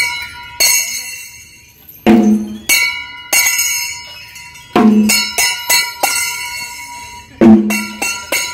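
Irregular strikes of a bell, each sharp hit ringing on with a deep hum under bright overtones; about ten strikes, some bunched in quick runs.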